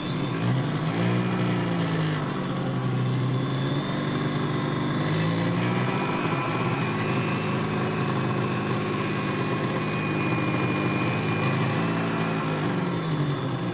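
Xiaomi Smart Blender's motor running, its speed rising and falling in smooth sweeps several times.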